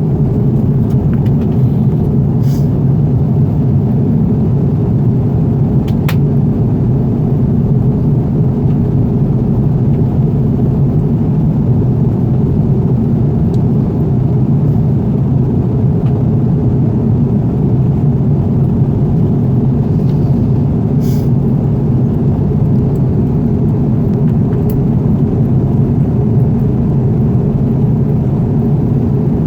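Steady cabin drone of an Airbus A330 airliner in flight: engine and airflow noise heard from inside the cabin, low and unchanging, with a few faint clicks.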